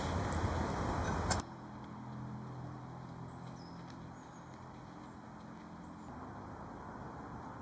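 Wind buffeting the microphone, cut off abruptly with a click about a second and a half in. Then quiet outdoor ambience with a faint steady low hum and a few faint bird chirps.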